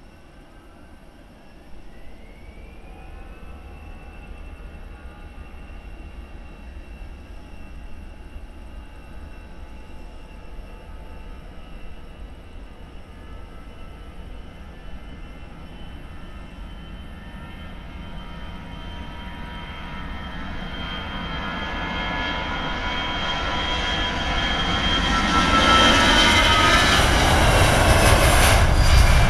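Twin jet engines of a Volotea Airbus A320-family airliner spooling up for takeoff, a whine rising in pitch about two seconds in. The engine noise then builds steadily to full takeoff thrust and is loudest near the end as the jet rolls down the runway.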